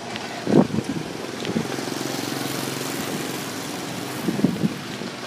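Street traffic with a vehicle engine passing close by, its hum and tyre noise swelling through the middle and then easing off. There are two brief louder sounds, about half a second in and near the end.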